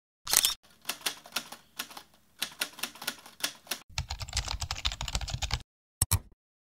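Keyboard-typing sound effect: a run of irregular clacking keystrokes that turns denser, with a low rumble under it, about four seconds in and stops suddenly, then a quick double click about six seconds in.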